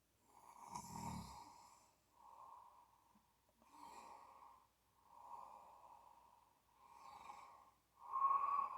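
Snoring: a quick run of six breathy snores, each a hissing swell about a second and a half apart, the last the loudest.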